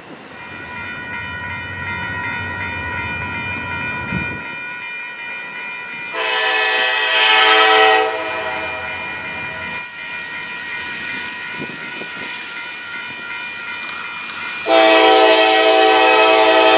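CSX freight train's lead diesel locomotive sounding its air horn in two long blasts, the first about six seconds in and the second near the end, over a steady high ringing tone and the low rumble of the approaching train.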